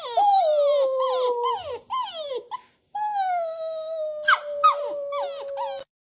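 A dog whining and howling: a series of short falling whines, with two long drawn-out howls, one near the start and a longer one of almost three seconds from about halfway through.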